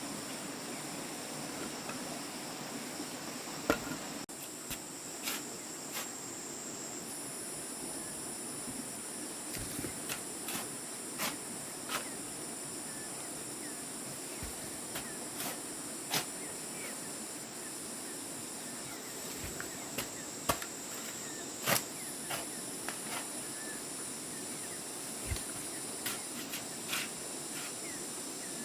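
Insects trilling in a steady high-pitched chorus, with scattered irregular knocks and clicks from handwork.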